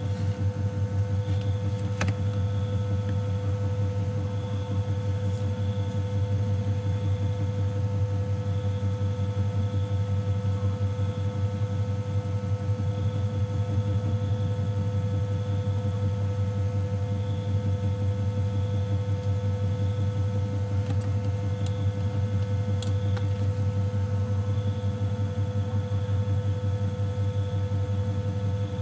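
Steady low hum throughout, with a few faint clicks.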